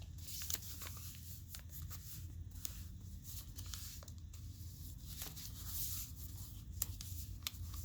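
Sheet of origami paper being folded and collapsed by hand: faint rustling with many small, irregular crinkles and crisp ticks, over a steady low hum.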